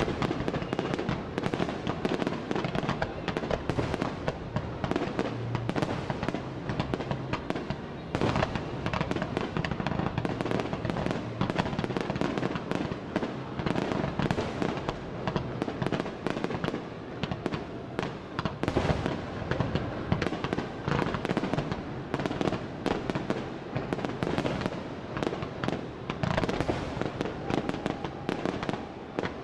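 Aerial fireworks shells bursting in a dense, continuous barrage, many sharp bangs a second overlapping one another with no pause.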